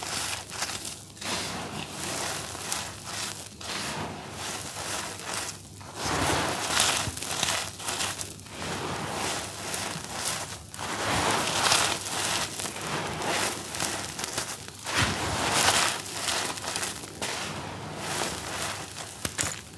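Bare hands scooping, squeezing and crumbling dry grainy charcoal on a hard floor, with the grit and powder pouring back down in a continuous gritty rustle. It swells louder every few seconds as each fresh handful is crushed and let fall.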